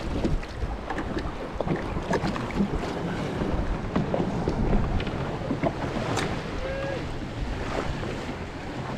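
Wind buffeting the microphone over choppy sea water lapping against a small boat's hull, with scattered light knocks and clicks.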